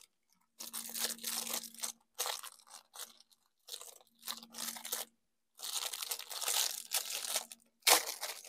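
Plastic packaging crinkling and tearing as a new laptop cooling fan is unwrapped by hand, in about five bursts with short breaks between.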